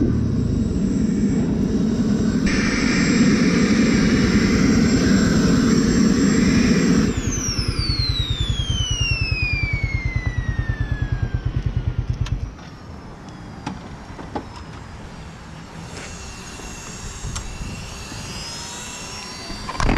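Sport motorcycle running loud with a steady high whine. About seven seconds in, the whine glides steadily down in pitch over several seconds while the engine settles to an even idle. The engine cuts off about twelve seconds in.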